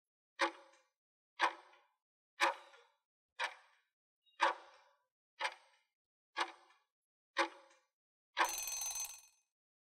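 Quiz countdown-timer sound effect: a tick once a second, eight ticks, then a ringing alarm about a second long as the count reaches zero, signalling time is up.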